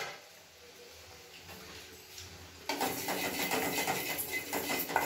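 Wooden spatula stirring and scraping poppy seeds around a steel kadai as they dry-roast. It starts abruptly a little past halfway, after a quieter stretch, and goes on as a steady run of quick scratching, rubbing strokes.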